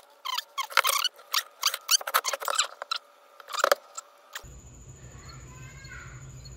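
A felt-tip marker squeaking in a quick run of short strokes as it draws lines on painted steel. About four seconds in, the squeaks give way to a steady low hum with a faint high whine.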